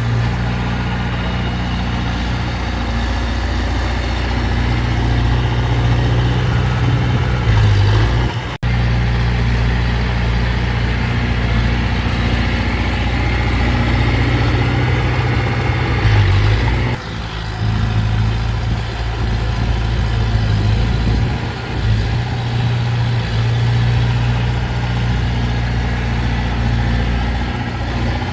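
Heavy diesel engine of earthmoving machinery running steadily, with a deep, even hum; the sound cuts out for an instant about nine seconds in.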